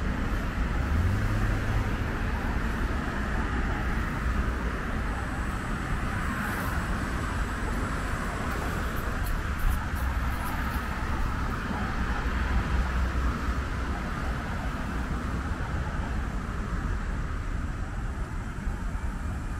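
Steady city road traffic: cars passing on a multi-lane road beside the path, an even rush of tyre and engine noise with a low rumble.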